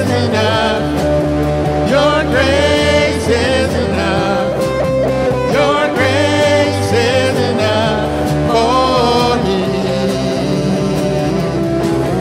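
Live band playing a worship song: electric guitar, drums and sustained low bass notes, with a singer's voice over them.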